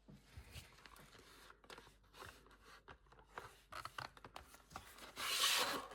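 A trading card being worked into a plastic protective sleeve: light scrapes and rustles of card on plastic, with a louder rustle about five seconds in.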